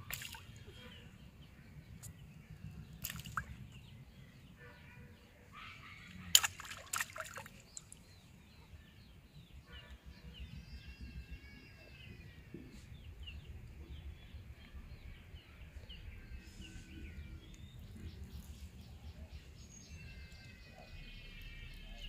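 A spray of bait splashing onto pond water at the start, then a few sharp knocks, the loudest about six seconds in. Later come short repeated bird chirps, twice, over a low steady rumble.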